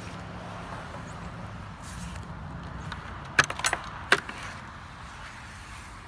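A quick run of four or five sharp clinks a little over three seconds in, over a steady low background hum.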